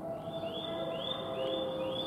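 Four short rising chirps, evenly spaced about half a second apart, over a faint steady tone.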